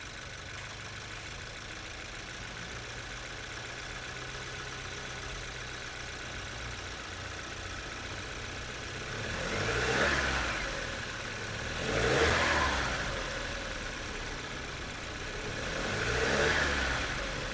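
Skoda Slavia's 1.5-litre turbocharged four-cylinder petrol engine idling steadily, then revved three times, each rev rising and falling back to idle, about ten, twelve and sixteen seconds in.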